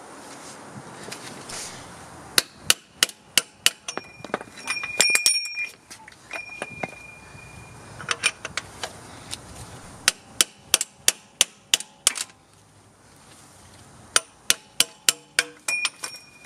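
A hammer tapping an oil filter socket to drive the inner axle-tube seal into a Dana 60 front axle. It comes in several quick runs of sharp metal strikes, about four a second, with some blows leaving a short ringing tone.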